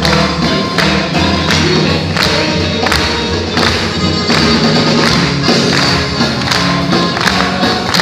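Live band playing an up-tempo song with a steady drum beat, electric guitar and bass.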